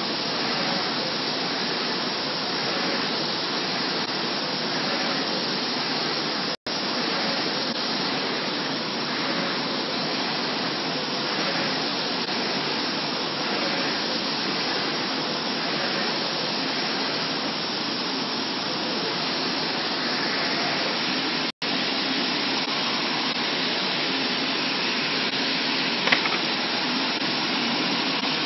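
MT industrial LED flatbed UV printer running with a steady, airy whir. The sound cuts out for an instant twice, and there is a single sharp click near the end.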